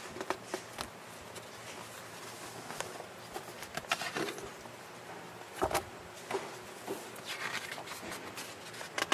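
Glossy paper pages of a sales brochure being turned and unfolded by hand: irregular crisp rustles and crinkles, the loudest about six seconds in.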